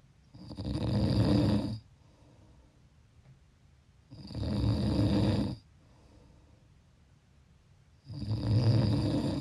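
A person snoring in a slow, regular rhythm: three long snores of about a second and a half each, roughly four seconds apart, with quiet breathing between them.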